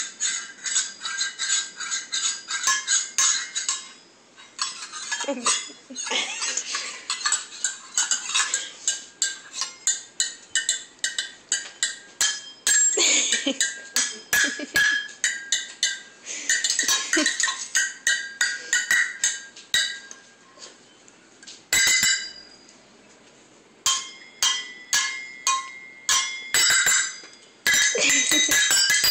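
Rapid clinking and jingling of small hard objects struck or shaken together, in long runs of quick strikes with brief pauses.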